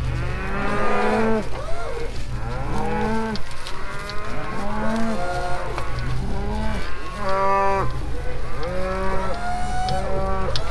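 A herd of cattle mooing, many overlapping calls one after another, each rising and falling in pitch, over a steady low drone.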